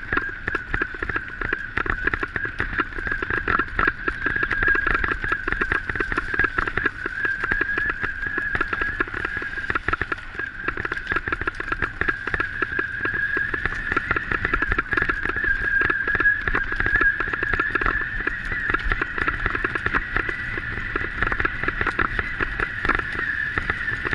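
A bicycle rolls fast over a rough forest dirt trail while a dog pulls it, with continuous rattling and clattering over the bumps. A steady high whine runs underneath.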